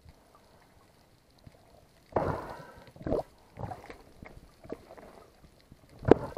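Underwater water noise around the camera: a handful of muffled sloshing rushes and knocks, spread over a few seconds, with a sharper knock near the end the loudest.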